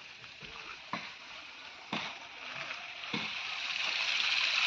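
Running water, trickling faintly at first and growing louder over the last second or two, with a few soft knocks about once a second.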